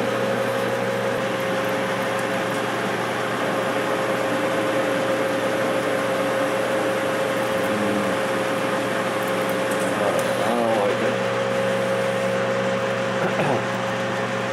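Enco metal lathe running at about 500 RPM while turning a steel bar: a steady mechanical whine with a hum underneath.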